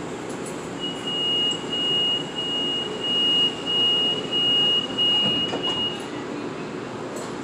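Inside a stationary M8 Metro-North railcar, a high steady electronic tone sounds for about five seconds, starting about a second in, over the car's steady hum: the door warning tone. A few sharp clicks come near the end.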